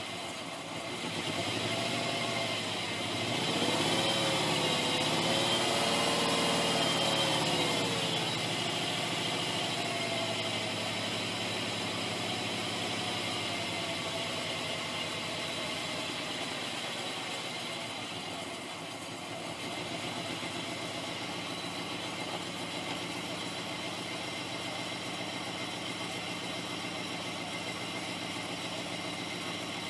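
2001 Oldsmobile Intrigue's 3.5-litre V6 running on its freshly replaced timing chain. The revs rise and fall a few seconds in, then it settles to a steady idle.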